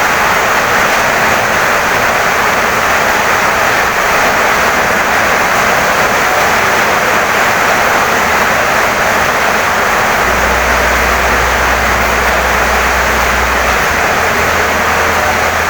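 Heavy rain pouring down steadily on a wooden house, an even, unbroken rushing hiss.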